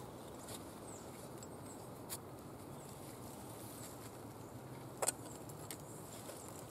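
Soft handling of cloth bags and bundles on a wool blanket over dry leaves, with a few faint clicks, the sharpest about five seconds in.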